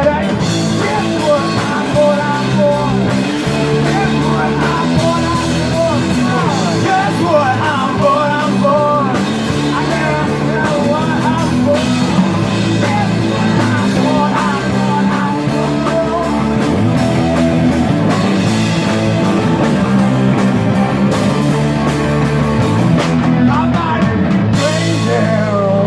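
A rock band playing with a singer: drums, guitar and vocals.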